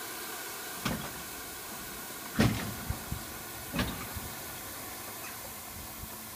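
Steam hissing steadily from a William Hedley 1813 Wylam steam locomotive as it lets off excess boiler pressure. Several sharp clanks break in: one about a second in, the loudest at about two and a half seconds, and another near four seconds.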